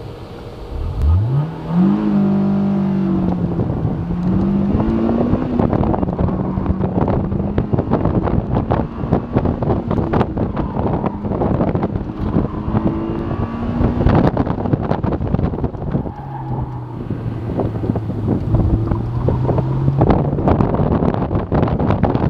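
Honda S2000's four-cylinder engine launched hard, its pitch shooting up about a second in, then held at high revs with brief drops before running lower near the end, as the car is driven flat out around a cone course. Heavy wind buffeting from the open top hits the in-car microphone throughout.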